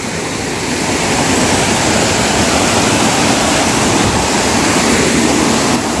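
Loud, steady rush of a monsoon-fed waterfall's water heard close up, growing a little louder in the first second.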